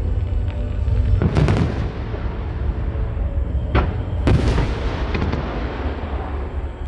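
Aerial fireworks bursting: loud bangs about a second and a half in, near four seconds and again just after, with smaller crackles after them, over a continuous low rumble of the display.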